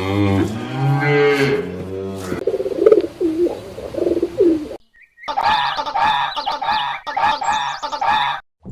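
Animal calls from different animals, one after another: a low, drawn-out call with a rich tone, then a shorter wavering call, and, after a short break, a quick series of repeated calls.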